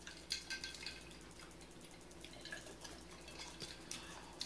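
Faint, close-miked chewing of breaded fish sticks, with scattered small wet mouth clicks and smacks and a sharper click near the end.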